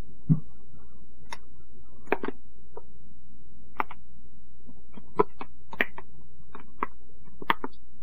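Plastic ketchup squeeze bottle being handled and squeezed over a ceramic bowl: irregular light clicks and taps, with a dull bump about a third of a second in, over a steady low hum.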